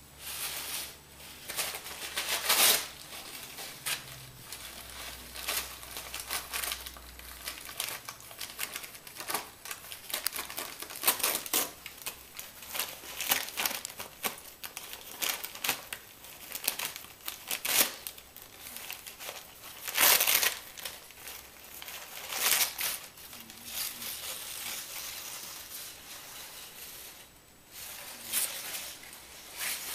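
Crumpled paper rustling and crinkling in irregular bursts as a Holland Lop rabbit noses, bites and tugs at it, with louder crinkles about two and a half seconds in and again about twenty seconds in.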